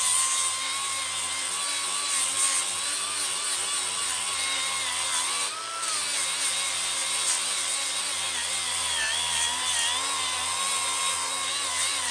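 Milwaukee M18 Fuel cordless angle grinder with a 60-grit sanding disc on a hook-and-loop pad, running at full speed and grinding steel off an axe head. A steady motor whine sits over the hiss of the abrasive, dipping briefly about six seconds in.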